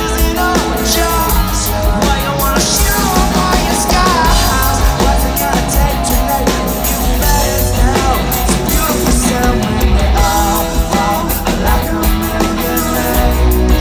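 Live rock band playing loud: a lead singer over electric bass guitar and a drum kit.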